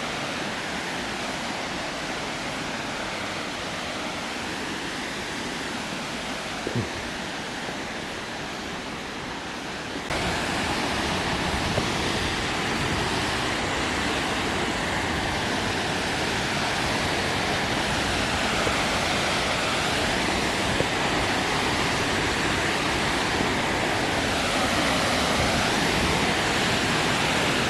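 Steady rush of water from a waterfall and creek, which gets suddenly louder about ten seconds in.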